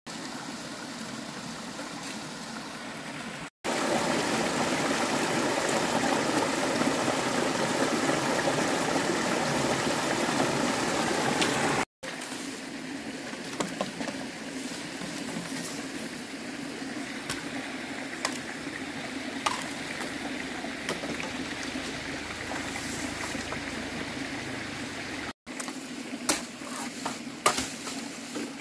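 Shallow mountain stream running over rocks, much louder for several seconds early on, then fainter. A few sharp knocks and snaps stand out near the end.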